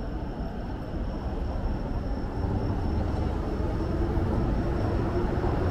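Low rumble of a passing vehicle that slowly grows louder, with a steady thin high-pitched tone running over it.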